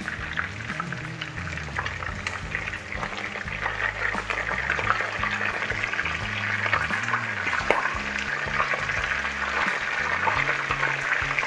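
Chicken pieces frying in hot oil as they brown, a steady sizzle with a dense crackle of small pops. Music plays underneath.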